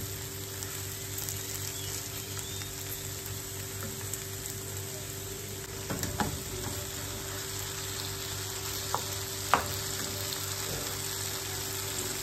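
Okra and onions sizzling as they fry in an uncovered nonstick pan, stirred with a spatula, over a steady low hum. There are a few sharp knocks of the spatula against the pan, the loudest about nine and a half seconds in.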